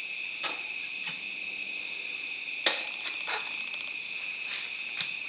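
Metal tyre levers clicking and knocking against a spoked motorcycle wheel rim a handful of times while a tyre is worked onto it, over a steady high-pitched whine.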